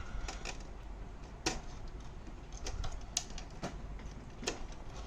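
Scattered sharp clicks and taps from hands working inside an opened laser printer, at the point where two wires are being unplugged from its board.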